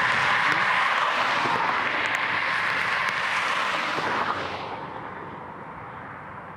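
A car passing close by on the highway, a steady rush of tyre and road noise that fades away after about four and a half seconds, leaving quieter distant traffic.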